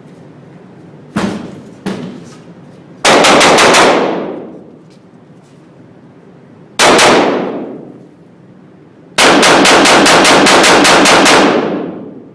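Glock 18 machine pistol firing on full auto in three rapid bursts: a short one, a very short one, and a longer one near the end, each shot evenly spaced and followed by echoing reverberation. Two quieter sharp cracks come just before the first burst.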